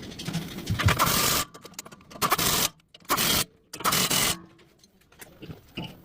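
Four short bursts of harsh mechanical noise, each about half a second long, separated by brief near-silent gaps.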